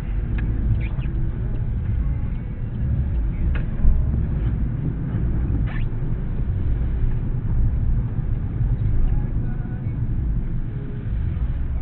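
Steady low rumble of a car on the move, engine and road noise heard inside the cabin, with a few faint clicks.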